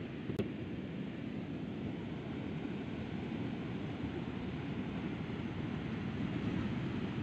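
Heavy ocean surf breaking on a beach: a steady, deep rush of waves. There is a single brief click near the start.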